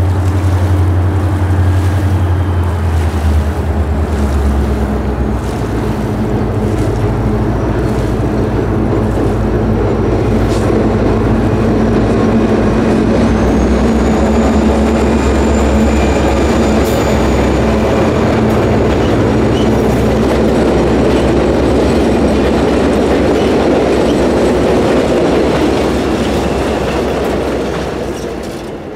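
EMD GP40-2 diesel locomotive leading a passenger train across a steel girder bridge: the engine's low drone over the steady rumble of wheels on rails, with a thin high wheel squeal briefly midway. The sound fades out at the end.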